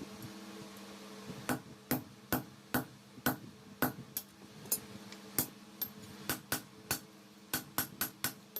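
Hand hammer striking forged steel on an anvil, a run of sharp metallic blows about two to three a second, starting about a second and a half in, over a steady low hum.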